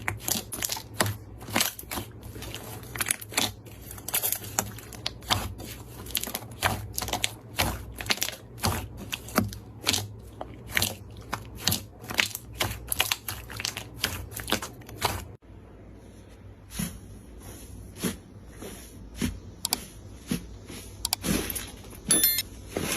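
Slime being squeezed and pressed by hand, giving rapid sharp clicks and pops, several a second. About two-thirds of the way through it cuts abruptly to a quieter stretch with fewer, softer pops.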